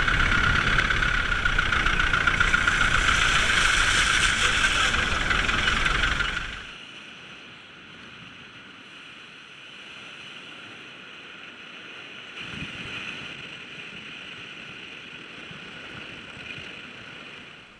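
A vehicle driving on a rough dirt road: loud engine and road noise with rattling. About six and a half seconds in, the sound cuts suddenly to a much quieter, steady drone with a thin, steady high whine.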